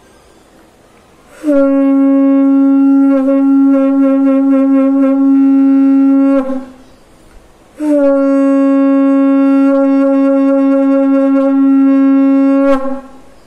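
Conch shell (shankh) blown in two long, steady blasts of about five seconds each, one starting about a second and a half in and the other about eight seconds in, each settling onto its note with a slight drop in pitch. This is the conch call used in the Mahabharata.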